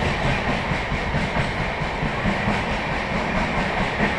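Passenger train running: a steady rumble of wheels on rails.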